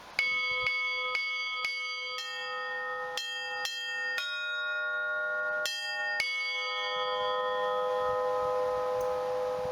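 Orthodox-style church bell ringing (zvon) on old Russian-cast bells, rung by their clappers: about ten quick strikes on bells of several pitches in the first six seconds, then the bells ring on, the higher tones fading and a low hum lingering.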